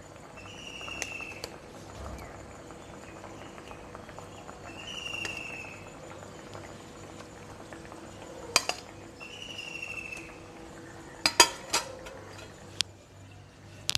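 Metal spatula clinking against a kadai as pieces of marinated rohu fish are slid one by one into simmering mustard gravy, with a cluster of sharp clinks in the second half. A short high chirp is heard three times in the background.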